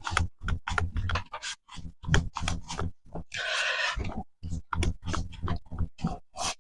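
Irregular knocks and clicks of a wrench on the wheel hub assembly's rear mounting bolts as they are worked loose, with a short rasping stretch about three and a half seconds in.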